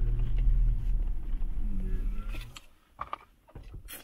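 Wind rumbling on the microphone on an open mountain slope, stopping abruptly about two and a half seconds in. Faint distant voices and a couple of sharp clicks follow.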